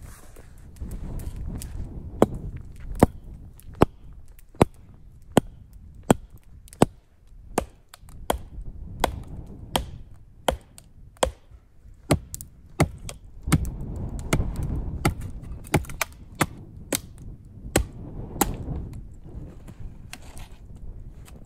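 Axe chopping wood: sharp, evenly paced strikes a little more than one a second, starting about two seconds in and stopping near the end.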